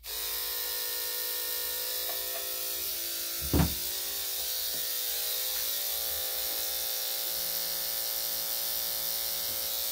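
Electric dog grooming clippers switched on, starting abruptly and running with a steady hum. A brief thump about three and a half seconds in.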